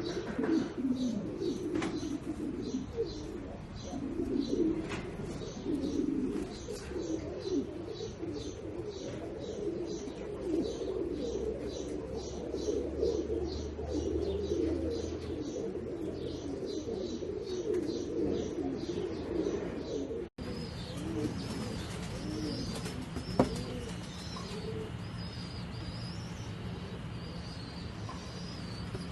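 Doves cooing continuously, with a rapid series of high chirps from small birds over them. About two-thirds of the way in, the sound cuts to a steady low hum with looping high chirps and fainter cooing.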